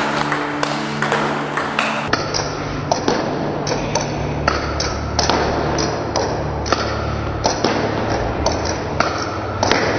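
Table tennis ball rallied against a Returnboard rebound board: a steady run of sharp ball clicks off racket, table and board, about two to three a second.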